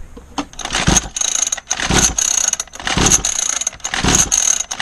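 A 49cc two-stroke mini dirt bike engine being pull-started over and over, four pulls about a second apart. The recoil starter whirs and rattles as the engine turns over without catching, a failure to start that the owner puts down to a worn-out spark plug.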